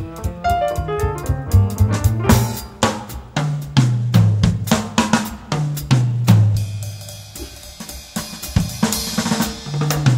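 Background music: a drum kit keeping a busy beat over a stepping bass line, with higher melody notes.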